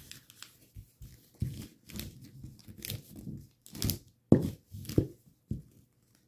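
A sheet of origami paper rustling and crinkling as it is folded and creased by hand, in short irregular rustles, the loudest a little over four seconds in.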